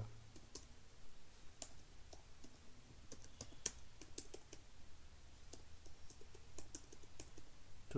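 Computer keyboard keys tapped in short, irregular runs while a command is typed, over a faint low hum.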